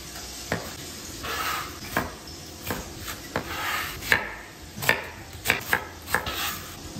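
Knife chopping vegetables on a cutting board in sharp, irregular strokes, over the steady sizzle of pork belly frying in lard in the pan.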